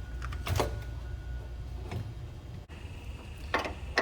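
Sharp metallic clanks and clicks of tools and metal parts as the A/C compressor is fitted back onto its engine bracket, a few separate knocks over a low steady hum.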